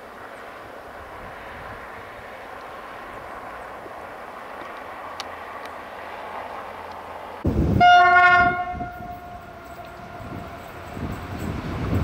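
A DE24000-class diesel locomotive approaches with a steady, slowly building rumble. About two-thirds of the way in its air horn sounds one sudden blast, loud for about a second and then fading away. Heavier engine and train rumble follows near the end.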